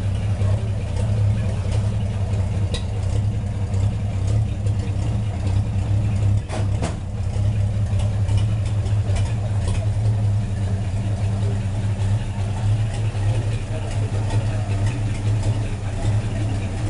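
1941 Chevrolet coupe's engine idling steadily, with a brief dip and a couple of light clicks about six and a half seconds in.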